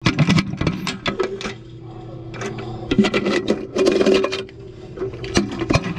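A quick, irregular run of sharp clicks and knocks over a steady low hum.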